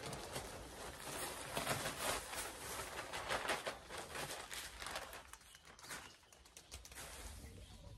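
Sheep moving about in the pen: a run of quick, irregular tapping and rustling steps, busiest in the first few seconds and dying down after about six seconds.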